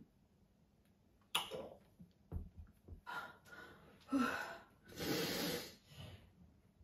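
A woman gasping and breathing hard after gulping fizzy Sprite from a 2-litre plastic bottle, with a long breath out about five seconds in. A couple of low thuds come about two and a half seconds in as the bottle is set down on the table.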